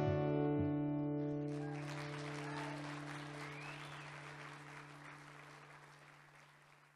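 The song's final acoustic guitar chord ringing out and slowly fading away. A soft hiss of noise joins about a second and a half in and fades with the chord.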